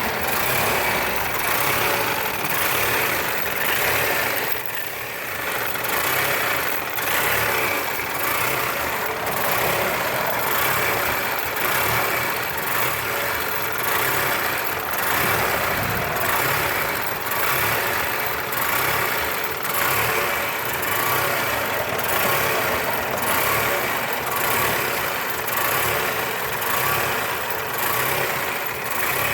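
Vehicle engine idling roughly, its level wavering unevenly about once a second, with a deeper dip about five seconds in: a rough idle.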